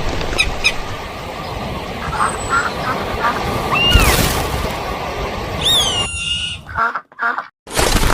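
Bird calls: a few high, arching whistled calls and short, harsh quacking calls over a steady rough outdoor noise, which drops out abruptly twice near the end.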